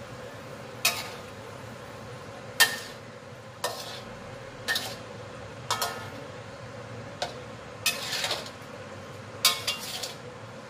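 A spatula stirring vegetables in coconut milk in a frying pan, clinking and scraping against the pan about nine times at roughly one a second, over a steady hiss.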